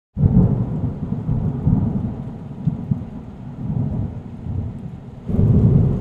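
Thunder rumbling low and uneven over a faint hiss of rain, easing off in the middle and swelling again near the end.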